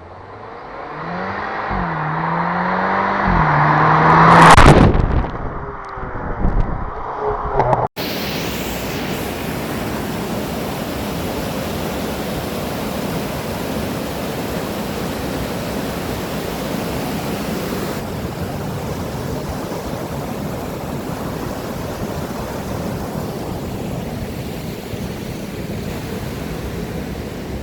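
A motor vehicle passes close by, its engine note dropping in pitch as it goes past and loudest about four and a half seconds in. After a cut about eight seconds in comes the steady rushing of the Triberg waterfall.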